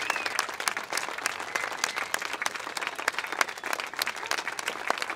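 Crowd applauding: many people clapping in a dense, uneven patter that starts as the sung final chord ends.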